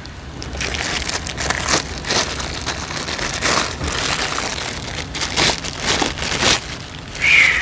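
Tool packaging being handled and torn open: irregular crinkling and crackling of cardboard and plastic, with a brief high-pitched sound near the end.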